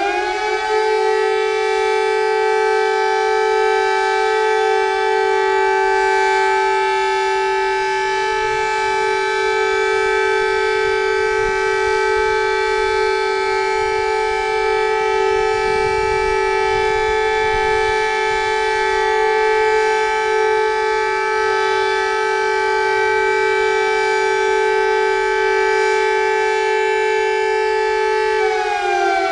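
Civil defense warning siren finishing its wind-up, then holding a loud, steady two-note tone, and beginning to wind down, falling in pitch, about a second before the end.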